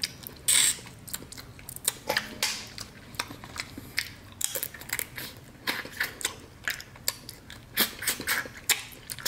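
Close-up eating sounds: sucking and slurping meat out of snow crab legs, with wet chewing and many short, sharp clicks and smacks; the loudest slurp comes about half a second in.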